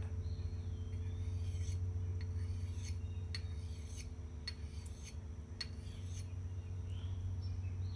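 Thick axe blade drawn in short strokes across the ceramic side of a pocket sharpener: a run of light, high scraping strokes, about two a second, giving a touch-up edge rather than a razor edge.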